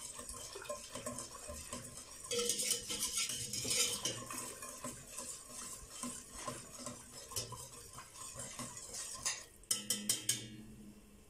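Wire whisk beating milk béchamel sauce in a stainless steel pot: a steady scraping swish, busiest a couple of seconds in, with a few sharp metal clinks near the end.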